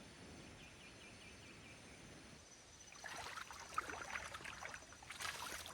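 Faint outdoor background with a faint repeated high chirping, then from about three seconds in a run of rustling and clicking noises, densest just before the end.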